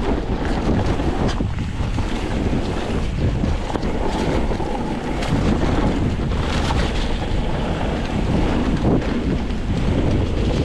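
Wind buffeting the microphone during a mountain-bike descent of a bumpy dirt trail, over the steady rumble of the tyres and scattered knocks and rattles from the bike.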